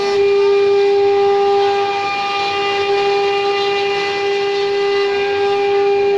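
Spindle of a MEIYA MY6090 stone engraving CNC router whining at one steady pitch with overtones as its bit engraves a black stone slab under a water-coolant spray, over a steady hiss of cutting and water.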